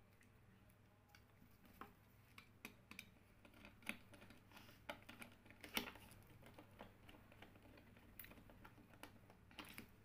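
Faint, irregular light clicks and taps of a small screwdriver and wire ends working on plastic switch and lamp-holder terminals.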